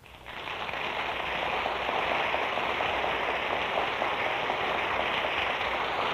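Studio audience applauding on an old radio recording, swelling over the first second and then holding steady.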